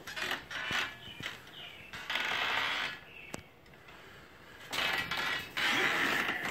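Creaking and scuffing of footsteps on a wooden porch deck, with one sharp click about three seconds in.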